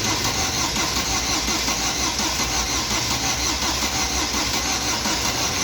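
Fiat Palio Weekend 1.8 engine cranking steadily on its starter motor with fuel injection cut off, so it turns over without firing. This cranking is for a relative compression test, which showed two adjacent cylinders low; the mechanic thinks a head gasket blown between them is very likely.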